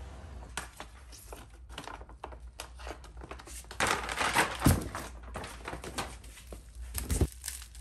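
Clear plastic bag crinkling and rustling as it is pulled off a new sway bar, busiest about halfway, with two dull thumps, one about halfway and one near the end.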